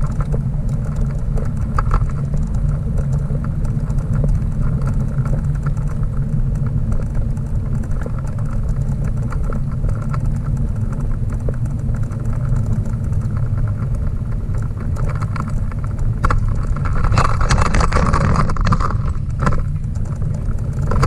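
Steady low rumble of a dog bike trailer rolling along a paved path, heard from inside the trailer, with scattered clicks and rattles from its frame as it goes over bumps. The rattling gets louder and busier near the end.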